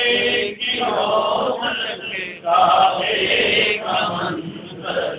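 A man's voice chanting an Islamic devotional naat in long sung phrases, with short breaks between them.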